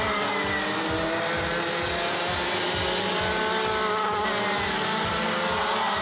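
Two-stroke engines of several racing karts at once, their high-pitched notes overlapping and rising and falling as the karts go through the corners.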